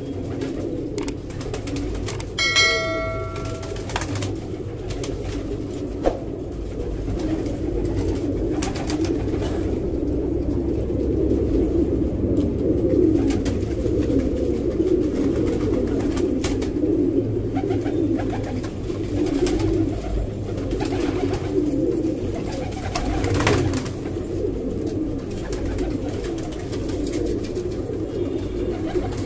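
Many Menadaag pigeons cooing together in their loft, the coos overlapping into a continuous low sound. A short ringing chime sounds about two and a half seconds in.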